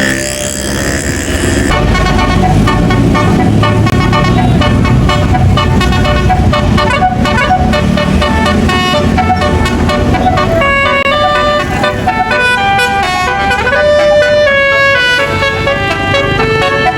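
Tour bus's basuri telolet horn, a multi-tone horn, playing a quick stepping melody over the low rumble of the bus's engine; the tune is clearest in the second half.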